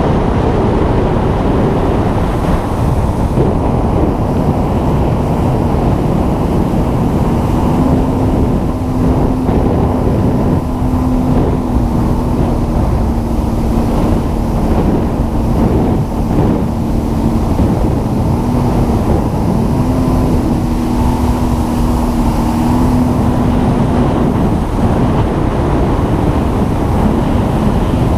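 A motor running steadily at speed, its pitch wavering a little, under heavy wind noise on the microphone.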